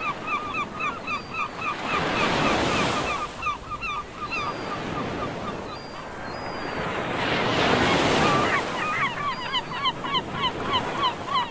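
Gulls calling in quick runs of short, repeated notes, about three a second, over breaking surf whose wash swells up twice.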